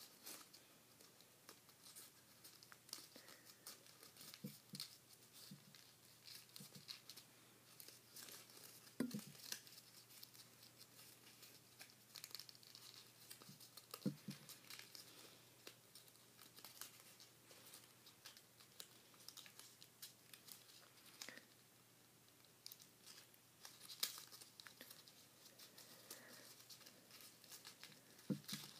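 Paper crinkling and rustling faintly as a sheet is folded and creased by hand into an origami revolver, with scattered crackles and a couple of soft knocks about nine and fourteen seconds in.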